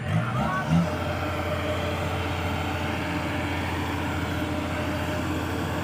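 Diesel engine of heavy farm machinery running steadily under load, with a brief louder, shifting sound in the first second.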